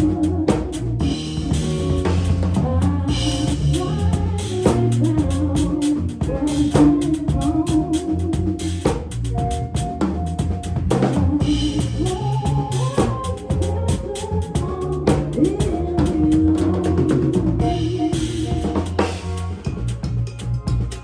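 Instrumental band music: a drum kit keeps a busy beat of kick, snare and rimshots under bass and a sustained melodic line.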